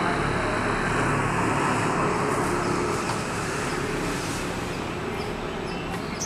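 Passenger train rolling away on the track: the steady rumble of coach wheels on rails fades slowly as the last coach draws off.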